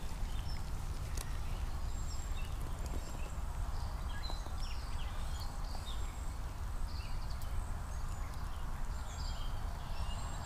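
Small birds chirping here and there over a steady low rumble, with a few faint knocks.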